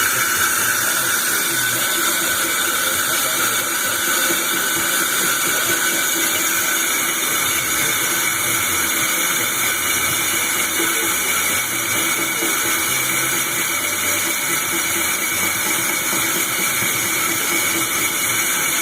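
Ikegai TUR 30L CNC lathe running: a steady hiss with faint steady tones under it.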